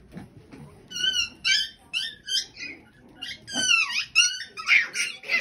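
Young puppies whining and yelping: a run of short high-pitched cries starting about a second in, several falling in pitch.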